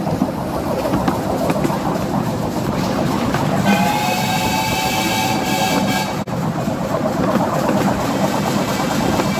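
Miniature railway train running over the track with a steady rumble and wheel clatter, heard from an open carriage. About four seconds in a steam locomotive whistle sounds for a couple of seconds, and a fainter whistle tone carries on near the end.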